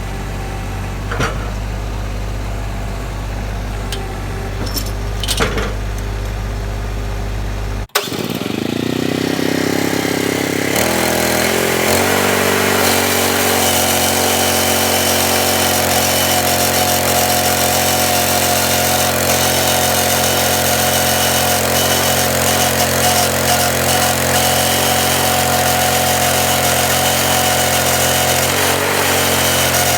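Sawmill's engine idling low with a few light clicks, then, after a sudden break, revving up over a few seconds and running steadily at high speed.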